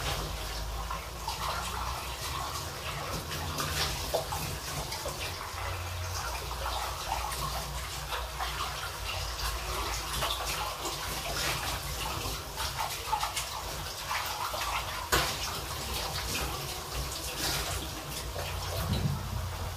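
Chicken livers and shrimp cooking in broth in a wok, the liquid bubbling and crackling with many small pops, over a steady low hum.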